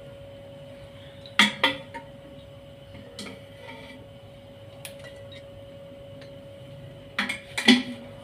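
Steel ladle knocking against an aluminium pressure cooker pot: two sharp clanks about a second and a half in, a couple of light taps, then a cluster of clanks near the end, over a faint steady hum.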